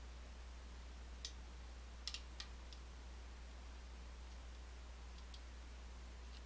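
Small, sharp metallic clicks of lock picks and tension wrench working the pin stack inside an M&C Move lock: a few clicks about a second and two seconds in, then fainter scattered ticks, over a steady low hum.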